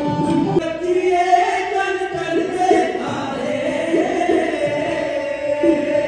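Men's voices singing a Sikh devotional song together, amplified through the stage microphones, with a sarangi and hand drum accompanying in the style of a dhadi jatha.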